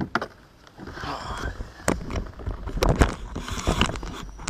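Irregular knocks, clatter and rustling as a small hampala barb on a lure is handled and unhooked in a plastic kayak, the sharpest knocks about two and three seconds in.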